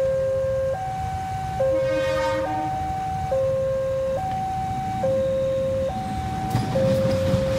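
Electronic two-tone warning alarm alternating steadily between a low and a higher tone, each held a little under a second. Near the end, the rumble of an approaching CC 203 diesel-electric locomotive and its train grows louder.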